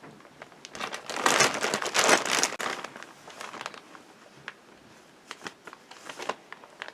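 A bag crinkling and rustling as toys are rummaged out of it, loudest from about one to three seconds in, then lighter crinkles and small clicks.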